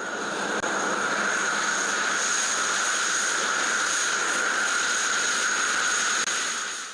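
Jet aircraft engine running steadily: an even rushing noise with a constant high whine over it, fading in at the start and out near the end.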